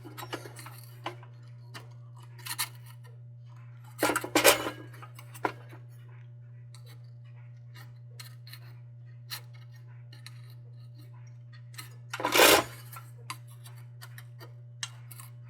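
Small metallic clicks, scrapes and knocks as the sheet-metal crown of a Dietz No. 2 Blizzard lantern is worked off with hand tools. There are two louder clattering bursts, about 4 seconds and 12 seconds in, over a steady low hum.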